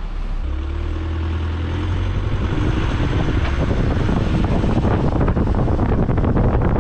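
Car pulling away and driving down a street, heard through a camera mounted on the outside of the car: a low engine hum comes in about half a second in, then rumbling road and wind noise that grows louder as the car picks up speed.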